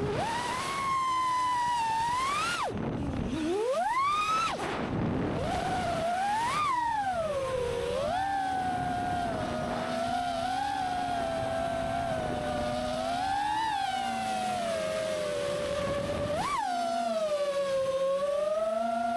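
Five-inch FPV quadcopter's brushless motors (T-motor Velox 2207 1950kv spinning Gemfan 51466 props on 6S) whining in flight, the pitch rising and falling with throttle. About three seconds in the pitch drops very low on a throttle chop and climbs back as power comes back on, with sharp quick rises near seven and sixteen seconds, over a rush of airflow noise.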